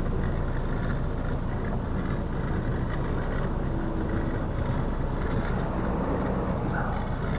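Scania 124L 420's straight-six diesel engine running steadily at low revs, heard from inside the cab as the truck creeps slowly while manoeuvring.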